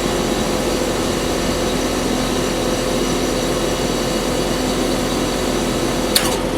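Trane XL16 heat pump outdoor unit running in heat mode: a steady hum carrying several fixed tones. A single sharp click comes near the end.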